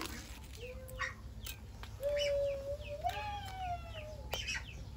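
A rooster crowing once: a long call about two seconds in that lasts around two seconds and rises in pitch partway through. A shorter call comes about half a second in, with small chirps and clicks around both.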